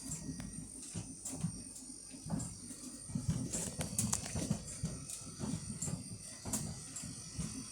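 A Siemens appliance making a strange, irregular knocking and clicking noise over a thin steady high whine.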